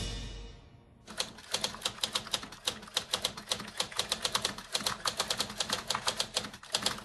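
Typewriter keys clacking rapidly, a run of quick keystrokes starting about a second in, used as a sound effect for on-screen text being typed out.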